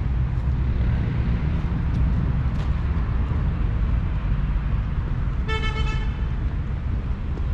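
Steady low traffic rumble with one short vehicle horn toot about five and a half seconds in.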